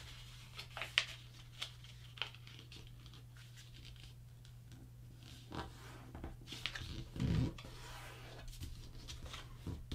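A sheet of paper being folded and creased by hand on a cutting mat: scattered soft rustles and crinkles, with a louder rub about seven seconds in. A faint steady low hum runs underneath.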